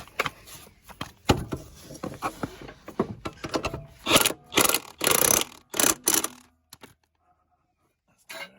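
Metal parts and hand tools clanking, knocking and scraping as a petrol lawn mower's blade and underside parts are refitted. A run of loud scraping rasps comes about four to six seconds in, then it goes nearly quiet.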